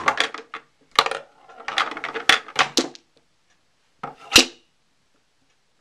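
Mini pool table balls clacking against each other and the cushions in a quick run of clicks over the first three seconds. About four seconds in comes a single sharp knock as the cue strikes the cue ball.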